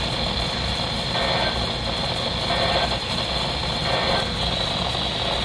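Steady hiss and low rumble from a weather radio receiver, broken by three short bursts of digital data tones about a second and a half apart, in the pattern of an EAS/SAME end-of-message signal.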